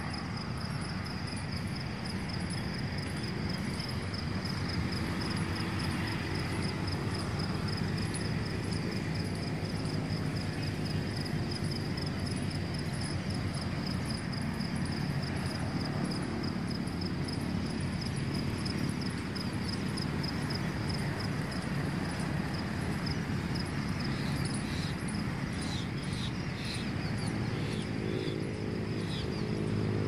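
Insects trilling continuously, a high, fast-pulsing buzz that holds steady, over a low steady rumble of outdoor background noise. A few short bird chirps come in near the end.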